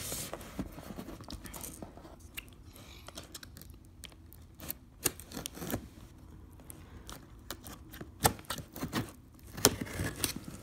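Tape seals on a cardboard box being slit with a pen tip: tape scraping and tearing against the cardboard, with scattered sharp clicks and taps, most of them in the second half.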